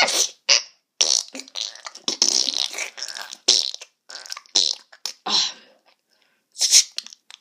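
A string of comic fart noises, one after another with short gaps, some drawn out and some short, then a pause and one last short one near the end.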